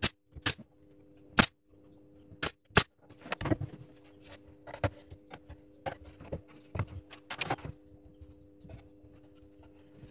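Cut wooden pieces knocking and clicking against each other as they are handled and fitted together. There are several sharp knocks in the first three seconds, then lighter taps and rustling, over a faint steady hum.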